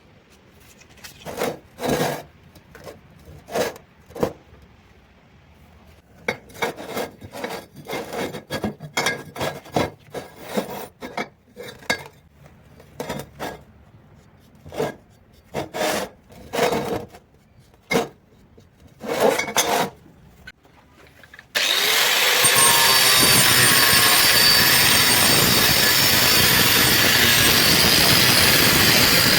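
Irregular rasping strokes of a hand tool working metal pipe, roughly one every half second to second, with pauses. About 22 seconds in, a loud power tool starts suddenly and runs steadily.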